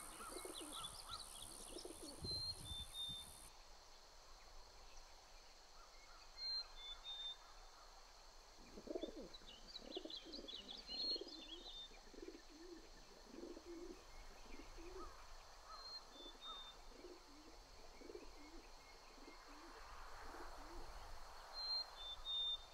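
Faint birdsong: a short, high two-note call repeats every four to five seconds, with a run of lower, pulsing calls in the middle.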